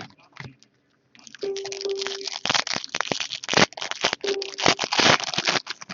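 Plastic trading card pack wrapper crinkling and rustling as it is torn open and handled, a dense run of crackles that starts about a second in, with a couple of faint brief squeaks.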